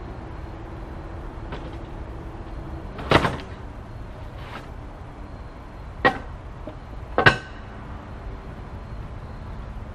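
Steel calibrated 25 kg weight plates knocking against each other as they are handled and set down: three sharp clanks, the first about three seconds in and the other two close together near the end, each with a brief metallic ring.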